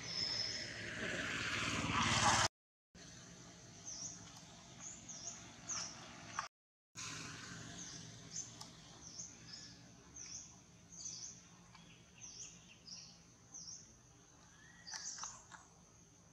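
A small bird chirping over and over: short high chirps at the same pitch, about one every half-second to second. For the first two seconds or so a rushing noise swells louder and then cuts off abruptly, and the sound drops out twice briefly.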